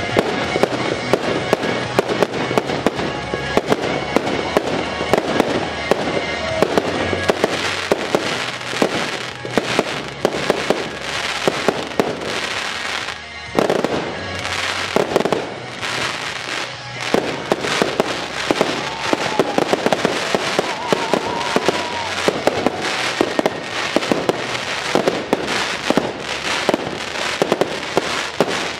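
Fireworks display: aerial shells bursting and crackling in dense, rapid succession, with a short lull about halfway through followed by a loud burst.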